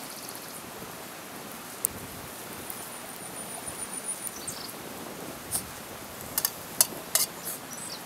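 Small wood campfire crackling, with a few sharp pops, the loudest cluster near the end, over steady outdoor background noise. A thin high steady whistle sounds for about a second and a half near the middle.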